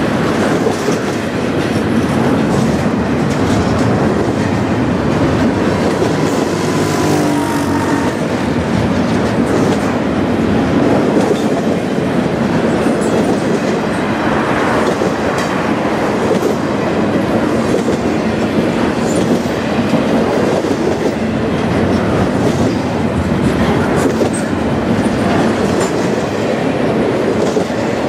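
Double-stack intermodal freight train passing close by: the well cars' steel wheels rumble and clatter steadily over the rail joints, with now and then a faint high wheel squeal.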